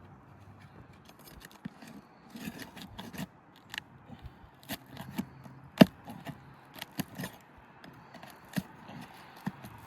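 Asphalt roof shingles being pried up and unsealed: scraping and crackling with irregular sharp clicks, and one louder knock about six seconds in.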